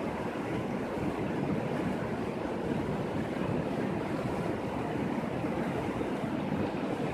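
Shallow, rocky mountain river flowing over stones: a steady, even rush of water.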